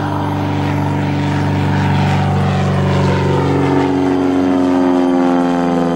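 Piston engine and propeller of a single-engine Cessna flying low overhead: a steady drone whose pitch sinks slowly as the aircraft passes.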